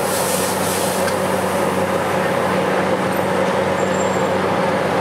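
Steady roar of a gas wok burner under a steady hum, with stir-fried rice noodles sizzling in the wok; the sizzle dies down about a second in, with a light clink of the ladle.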